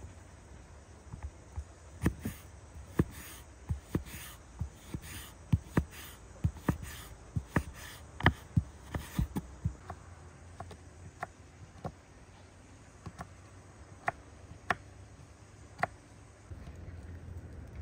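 A series of sharp, irregular knocks or taps, about one or two a second, closest together and loudest in the first half, then sparser toward the end.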